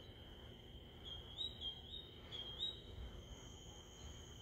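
Faint night chorus: a steady high insect trill with short rising chirps over it, repeated about three times a second in small groups, from a northern mockingbird singing.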